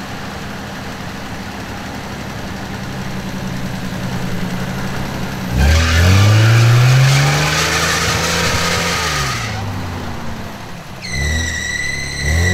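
Lifted GAZ Volga on 39-inch mud tyres, its engine running low, then revving hard about six seconds in and held for a few seconds as the wheels spin and churn through mud before the revs drop. Two shorter revs follow near the end, joined by a high steady squeal.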